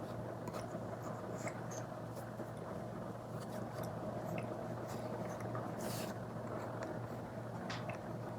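Apple Pencil tip drawing on an iPad fitted with a paper-like screen protector: scattered short scratches and ticks from the strokes and taps, over a steady background hiss and hum.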